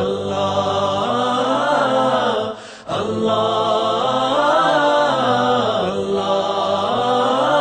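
Slow devotional vocal chant of a nasheed: layered voices sing rising and falling phrases, with a short break about three seconds in.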